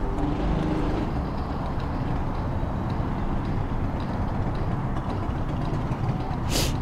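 Steady low rumble of nearby motor traffic, with one short, sharp hiss near the end.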